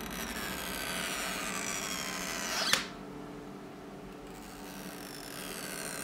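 Stretch-release adhesive strip under an iPhone XR battery squealing as it is slowly pulled and stretched out, the squeal falling in pitch. It ends in a sharp snap nearly three seconds in. A second stretching squeal starts in the last couple of seconds.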